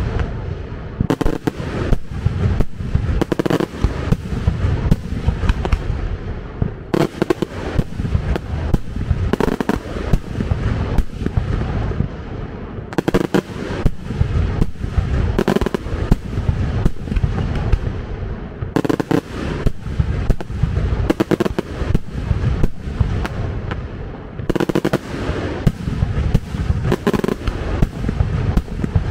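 Fireworks display: a dense, continuous barrage of sharp bangs and crackling over a deep rumble, with a fresh volley of reports starting about every six seconds.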